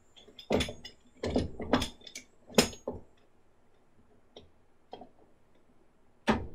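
Zyliss vise parts being set down and fitted onto a wooden bench top: several hard knocks and clunks in the first three seconds, then a couple of light clicks and one sharper knock near the end.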